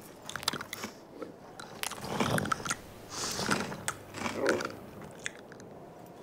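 Cartoon sound effect of a camel chewing on a paintbrush: crunchy biting and munching in three bursts about a second apart, with scattered clicks before them.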